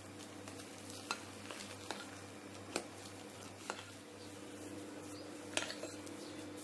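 A utensil gently mixing melted chocolate and cream in a bowl, giving a few faint, scattered clicks against the bowl over a steady low hum.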